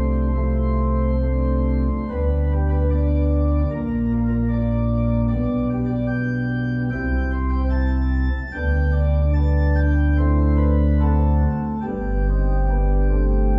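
Organ playing slow, sustained chords over deep held bass notes, the chords changing every one to two seconds.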